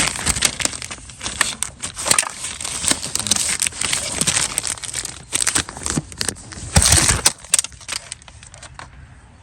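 Plastic packaging rustling as a new replacement gear shift cable is handled, with irregular clicks and rattles, loudest about seven seconds in and dying down near the end.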